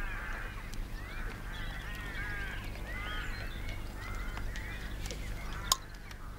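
A flock of birds calling over and over: short calls that rise and fall in pitch and overlap, most of them in the first four and a half seconds. A single sharp click sounds near the end.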